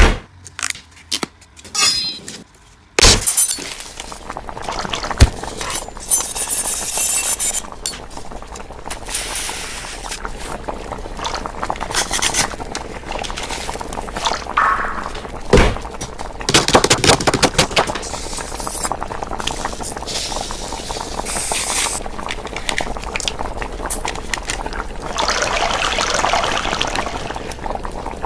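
Kitchen handling sounds: a few sharp clicks in the first seconds and a loud knock about three seconds in, then a long run of clattering and rustling, with liquid pouring near the end.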